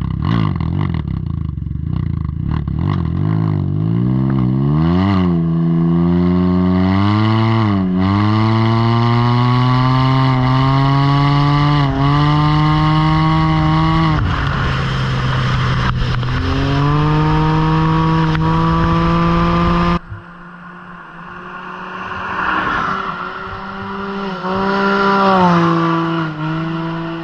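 Can-Am Ryker 900 three-wheeler with an aftermarket RLS slip-on exhaust, accelerating hard: the engine note climbs in pitch, dips briefly several times, and climbs again. It cuts off abruptly about 20 seconds in. A quieter pass-by of the same exhaust follows, swelling to its loudest near the end and then fading.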